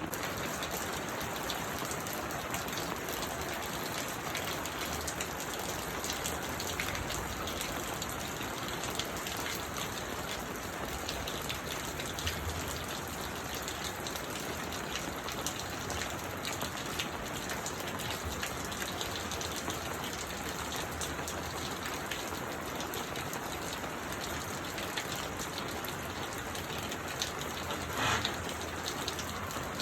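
Steady rain falling, with many single drops ticking on a surface and one louder knock near the end.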